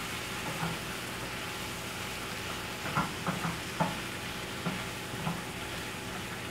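Bacon sizzling steadily in a frying pan, with a few light knocks about halfway through.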